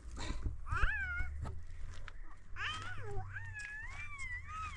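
An animal calling with high, wavering cries: two short ones, then a long drawn-out one near the end.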